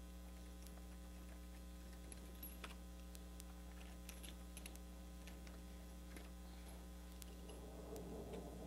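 Steady electrical mains hum, with faint scattered ticks as a splining tool's roller presses vinyl spline into a window-screen frame's groove. A faint rough rolling noise rises near the end.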